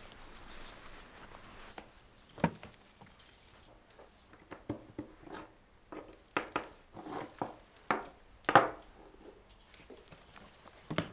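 Small objects being picked up and set down on a wooden desk: a string of light taps and clicks with a little scraping, the sharpest knock about three-quarters of the way through.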